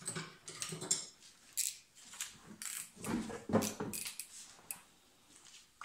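Irregular short metallic clicks and scrapes from a utility knife being worked around a stuck piston ring on a chainsaw piston, trimming and prying to free the ring. The clicks cluster most thickly about three to four seconds in and stop about five seconds in.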